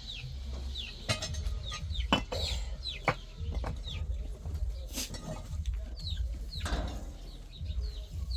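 Birds chirping: short, falling chirps that keep repeating, with several sharp knocks in between and a low rumble underneath.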